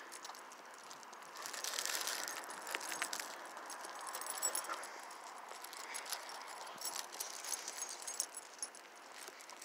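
Faint rattling and scattered clicks over a steady hiss, a little louder about one and a half seconds in.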